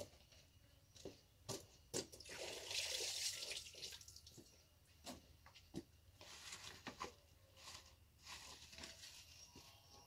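Liquid pouring and splashing in short spells, loudest from about two to three and a half seconds in, among a few sharp clicks and knocks of handling containers. This is a backpack sprayer being readied with its pesticide mix.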